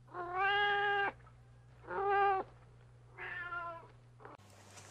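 A cat meowing three times: one long meow, a shorter one, then a third that falls slightly in pitch.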